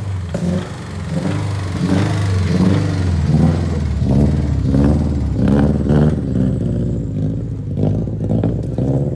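Subaru STI's turbocharged flat-four engine and exhaust, revving up and down several times as the car pulls away. The engine has ring land failure and trails smoke, though it still runs.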